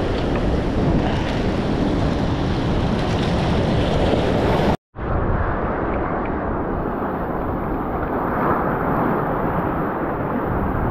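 Surf washing over the rocks of a jetty, with wind buffeting the microphone. The sound cuts out for a moment about five seconds in.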